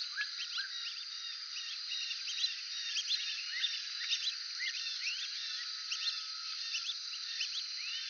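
Brazilian teal (marreca-ananaí) calling: many short, high whistled notes from several birds, overlapping continuously over a steady high hiss.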